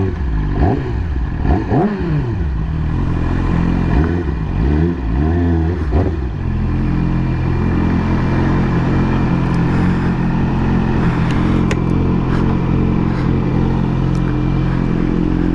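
2020 Yamaha YZF-R6's inline-four engine, its revs rising and falling for about six seconds, then settling into a steady idle.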